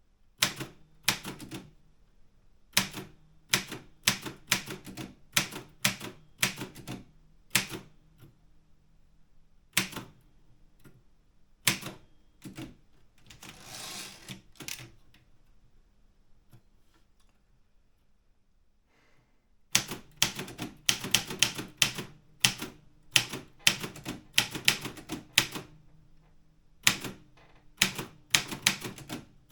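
Optima Elite 3 manual typewriter being typed on: sharp key strikes in short irregular runs. About 14 s in there is a brief rasping sound, then a pause of several seconds before a fast, dense run of keystrikes.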